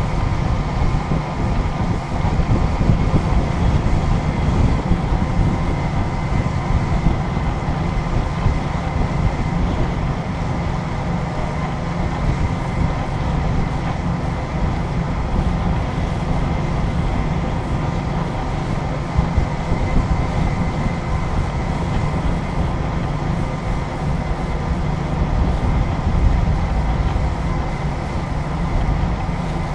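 A motor running steadily: a continuous low engine drone with a faint steady whine above it.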